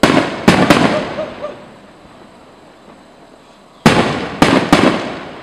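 Aerial firework shells bursting: three loud bangs in quick succession, then after a pause of about three seconds another three, each group rumbling away over a second or so.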